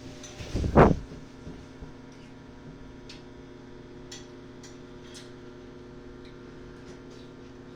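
GE countertop microwave oven running with a steady low hum. There is a loud thump about a second in, then scattered faint ticks.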